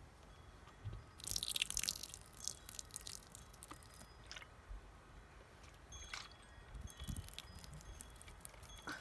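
Snow crunching and crackling in irregular bursts, densest and loudest a little over a second in, then scattered crackles.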